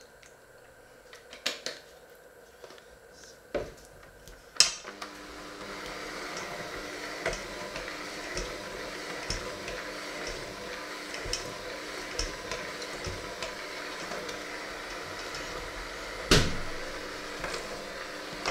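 Electric hand mixer with dough hooks, switched on about five seconds in after a few clicks. Its motor then runs steadily while the hooks tick and scrape against a stainless steel bowl of crumbly dough, with one loud knock of metal on the bowl near the end.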